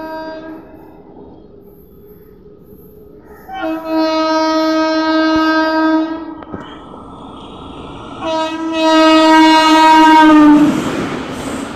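Electric locomotive's air horn: a blast trailing off at the start, then two long blasts of about two and a half seconds each, the last one dipping in pitch near its end as the locomotive passes close by. Then the noise of the express train's locomotive and coaches rolling past.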